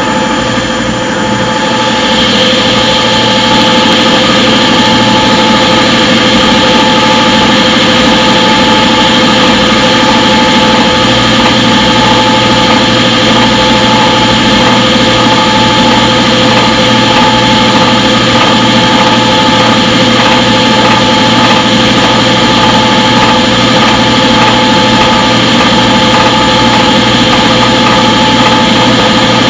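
Front-load washing machine running, a steady motor whine over a hum with several fixed pitches, dipping slightly in the first couple of seconds before holding steady.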